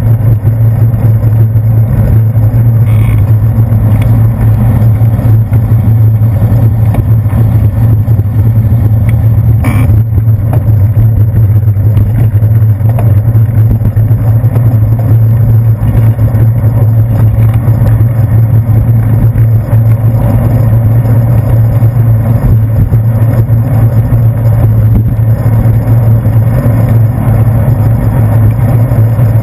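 Steady, loud low rumble of wind and road vibration picked up by a handlebar-mounted GoPro Hero 2 as the bicycle rides over wet pavement, with a couple of brief clicks about three and ten seconds in.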